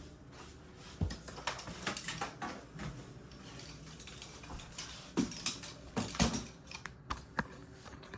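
Irregular light clicks, taps and knocks of hard objects being handled, with a few louder knocks about a second in and again around five and six seconds in.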